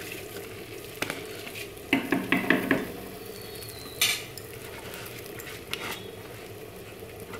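Soaked basmati rice poured from a plastic colander into a pot of frying chicken masala, over a steady sizzle. A quick run of knocks comes about two seconds in, and a single sharp knock about four seconds in, as the colander is shaken and tapped empty.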